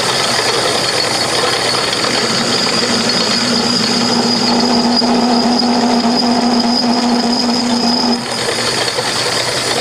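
Metal lathe running at a higher spindle speed with a parting blade cutting a groove into the spinning metal workpiece. It makes a steady cutting noise with a high whine throughout and a lower hum from about two to eight seconds in, then eases off slightly.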